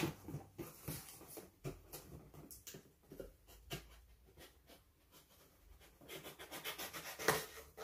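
Packing tape on a cardboard shipping box being slit and scraped open with a small hand-held tool: faint scratchy scraping with scattered ticks and crackles, sparse in the middle and busier near the end.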